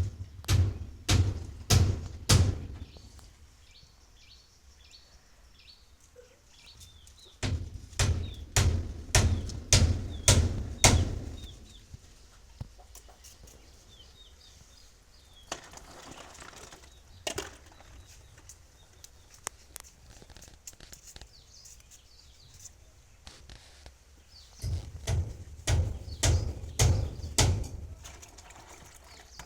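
A heavy hand tool striking again and again, about two blows a second, in three bouts of a few seconds each with pauses between.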